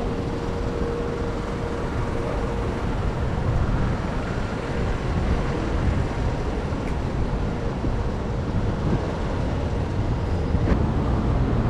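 Steady city street noise: a low rumble of road traffic, with no single event standing out.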